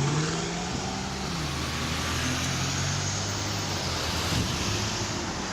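Car engine running on the move over road noise, its note dropping a little over a second in.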